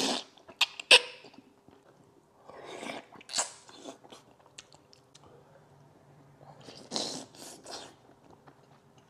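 A person slurping and sucking soft, slow-stewed pork trotter into the mouth, with chewing and lip-smacking noises between. The loudest slurps come around the start, about three seconds in and about seven seconds in, with a couple of sharp clicks near one second.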